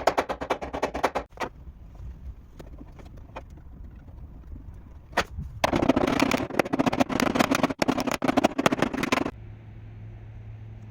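Rapid tapping on car body metal, about a dozen strokes a second, as in paintless dent repair tap-down work. It comes in two runs of a few seconds with single taps between them, then gives way to a steady low hum near the end.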